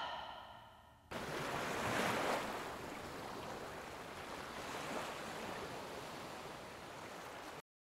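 The music dies away in the first second. Then comes a steady rush of waves breaking on a shore, swelling slightly twice, until it cuts off suddenly near the end.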